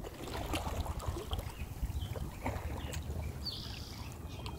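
Water sounds of a kayak being paddled: light paddle splashes and drips against the hull, over a steady low rumble.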